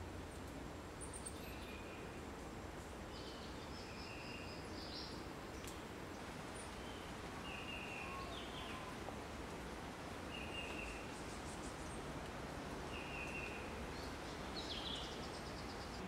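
Jungle ambience: a steady hiss with short, flat, high-pitched calls that repeat every one to three seconds, and a few higher chirps scattered among them.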